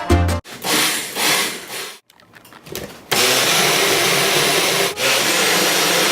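Magic Bullet blender running steadily, starting about three seconds in, with a brief dip near five seconds.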